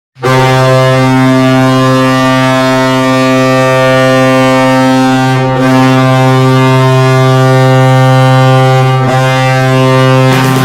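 Ice hockey arena goal horn sounding one long, steady, low blast with slight dips about five and a half and nine seconds in. Goal music starts just before the end.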